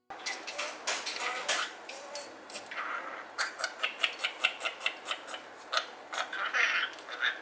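A pet parakeet chattering: quick runs of sharp clicks mixed with a few short high chirps, the longest about three seconds in and again near the end.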